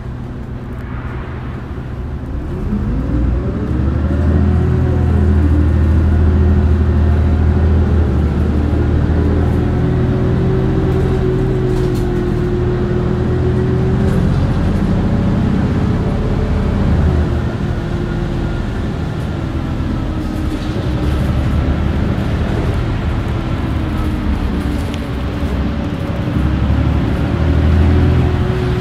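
Mitsubishi Fuso LKG-MP37FKF city bus under way, heard from inside the cabin: the diesel engine and drivetrain running, rising in pitch as the bus pulls away a couple of seconds in, then shifting up and down in pitch with changes of speed and gear, over a steady held tone.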